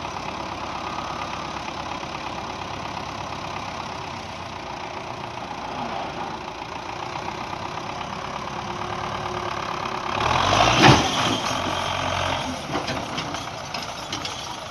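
Belarus tractor's diesel engine running steadily. About ten seconds in, a loud rush and rumble lasts about two seconds, followed by scattered knocks.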